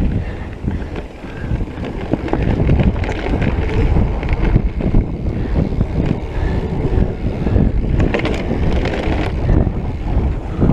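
Wind rushing over the microphone of a mountain biker's point-of-view camera, with tyres rolling on a dirt trail and frequent short rattles and knocks from the bike over bumps.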